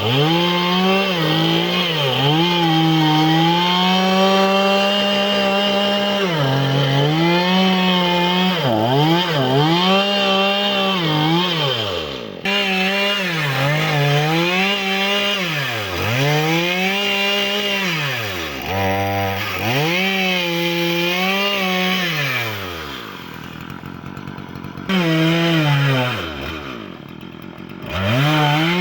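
Chainsaw engine running and revved up and down over and over, its pitch rising and falling many times, dropping back toward idle twice near the end.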